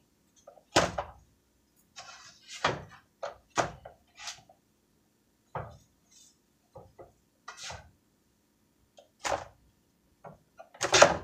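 Kitchen clatter: a spatula and a frying pan knocking and clanking, about eight separate knocks spread over several seconds, the loudest about a second in.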